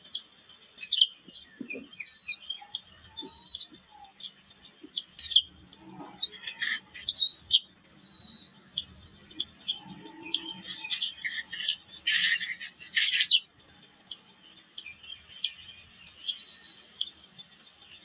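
Eagle chicks in the nest cheeping with repeated short, high-pitched chirps and sliding calls, with a louder, denser burst of calling about twelve to thirteen seconds in.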